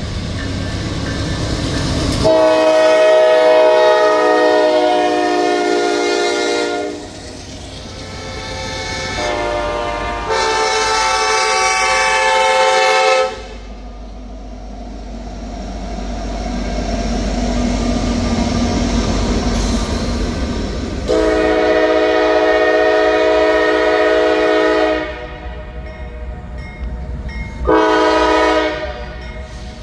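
Diesel freight locomotive air horns sounding a series of blasts, mostly long with one or two short, each a chord of several steady notes. Between the blasts comes the low rumble of locomotives and rolling freight cars.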